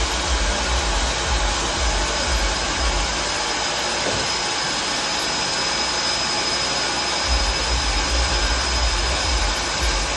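Handmade mobile sawmill running: a steady, even machine noise with a thin high whine, and gusty low rumble of wind on the microphone that eases off in the middle.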